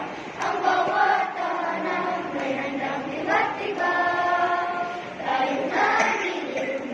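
A group of children singing a Christmas carol together, with a long held note about four seconds in.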